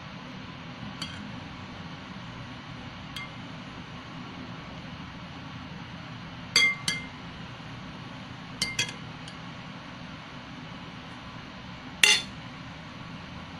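A spoon clinking against a ceramic soup bowl: a scattering of short, ringing clinks, including two quick pairs and the loudest one near the end, over a steady low hum.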